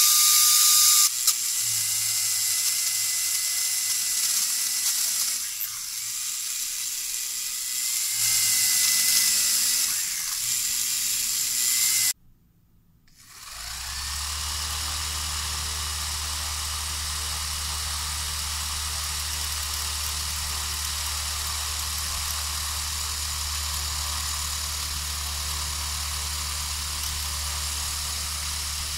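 Small DC motors whining at high speed as a drill bit in a brass collet bores into a stick of wood, the whine wavering in level. After a short break about twelve seconds in, the same three-motor assembly runs steadily with a low hum, spinning a propeller.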